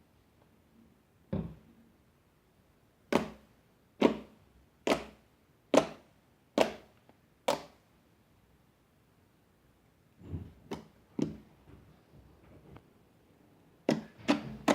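Blue slime with EVA foam clay worked by hand: one thump, then six sharp slaps about a second apart, a few softer ones later, and a quick run of slaps near the end.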